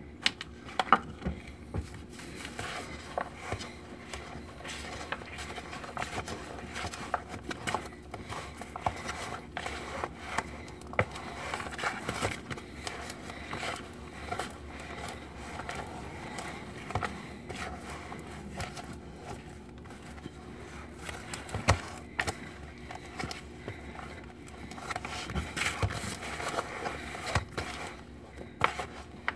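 Wooden spoon scraping and knocking against a clear plastic bowl while thick, dry chocolate chip cookie dough is stirred by hand, with a little water just added to moisten it. An irregular run of scrapes and small clacks.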